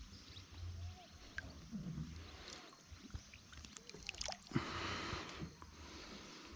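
Lake water splashing and sloshing as a pacu is grabbed by hand and hauled out of the water, with a louder rush of water streaming off the fish about four and a half seconds in.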